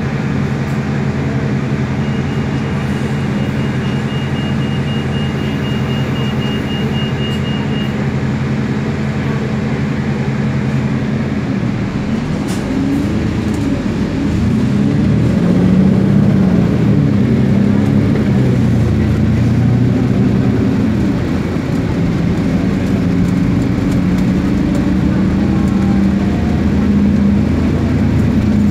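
Double-decker bus engine heard from inside the passenger cabin, running with a steady idle hum. About twelve seconds in, the bus pulls away and the engine note rises and falls several times as it gathers speed.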